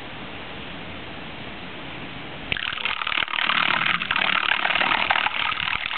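A homemade ROV's thruster switching on at the water's surface about two and a half seconds in, its propeller churning the water with a steady rushing noise. Before that there is only a faint, even hiss.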